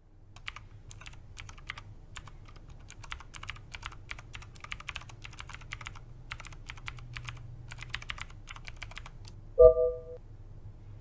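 Typing on a laptop keyboard: irregular runs of quick key clicks with short pauses between them. Near the end the clicks stop and a short, loud tone with a thump at its start sounds once.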